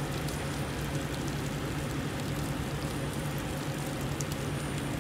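Steady low drone with a constant hiss from idling truck engines.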